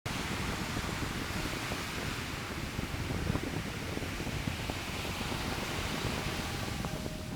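Steady rushing noise of wind on the microphone mixed with ocean surf.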